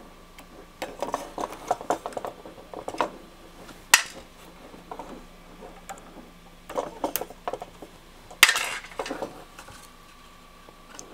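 Small metal hand tools and loose parts clicking and clinking on a workbench while the knobs are loosened and pulled off an antenna analyzer's front panel. There are irregular light clicks, with a sharper click about four seconds in and another a little past eight seconds.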